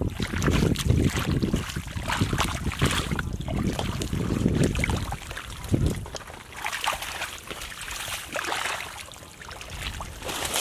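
Legs wading and treading through thick, wet mud: irregular squelching and sloshing, heavier in the first half and lighter after about six seconds.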